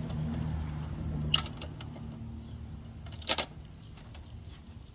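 A low vehicle engine hum that fades out about three and a half seconds in, with two sharp metal clinks of hardware being handled, the second one louder.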